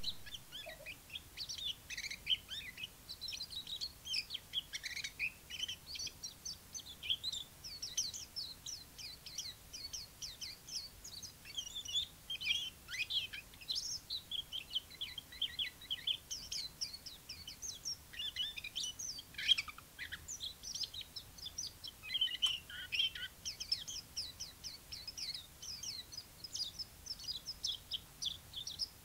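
Chinese white-eye singing: a long, fast, high twittering song of rapid chirps and short slurred notes, running almost without a break.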